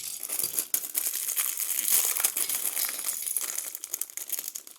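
Plastic bag of LEGO pieces crinkling and rustling as it is handled, with many small crackles.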